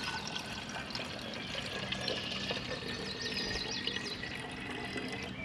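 Water pouring from a plastic tub into a plastic water bottle, a steady trickling splash.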